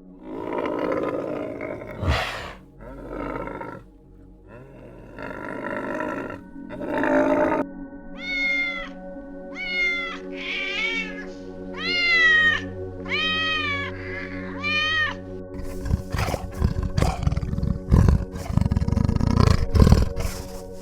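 A big cat growling and roaring in rough bursts, then a run of about seven high, arching calls, then a string of sharp knocks near the end, over a steady background drone.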